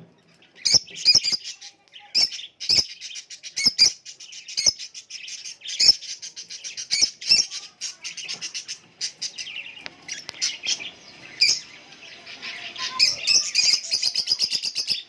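Cockatiels chirping with many short, sharp calls, breaking into a quick run of rapid chatter near the end.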